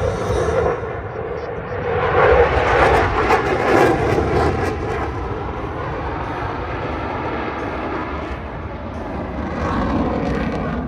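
Jet noise from F/A-18 Super Hornets flying overhead. A loud rushing roar builds about two seconds in and peaks for a couple of seconds, then settles into a steady rumble that swells again near the end.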